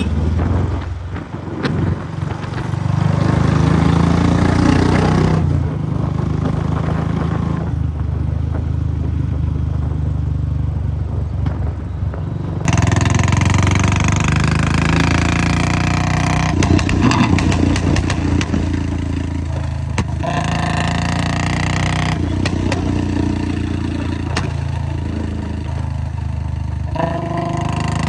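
Royal Enfield Bullet 500's single-cylinder four-stroke engine running steadily on the move, its low exhaust thump carrying throughout. A louder rushing noise joins about halfway through.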